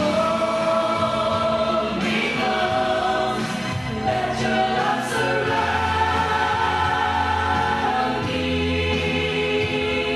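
A small group of men's and women's voices singing a Christian worship song together into microphones, holding long notes over steady low accompaniment notes.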